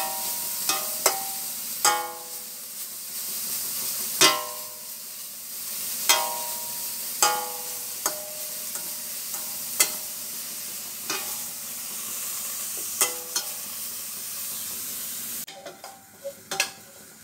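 Shredded cabbage, carrot and egg frying in oil in a stainless steel pot with a steady sizzle, while a metal spatula stirs and knocks against the pot every second or two, each knock ringing briefly. Near the end the sizzle drops away and a few more spatula clanks follow.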